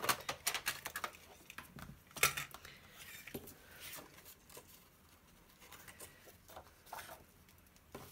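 Light rustling and small taps of paper and a plastic sleeve being handled on a desk, busiest in the first couple of seconds and sparser after.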